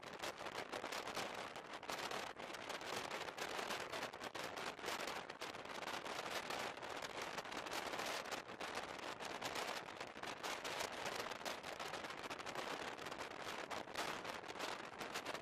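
Running noise of an SJ night train heard from inside the coach: a dense, steady crackling rattle of wheels on rails.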